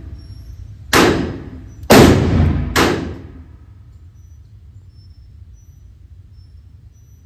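Three shots from a Ruger Redhawk .44 Magnum revolver fired double action, a little under a second apart, each trailing off in the echo of an indoor range.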